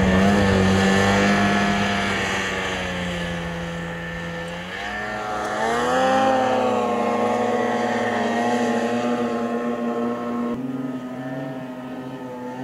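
Snowmobile engine running hard as it climbs through deep powder; its pitch holds steady, rises about five seconds in as the throttle opens further, then holds at the higher pitch.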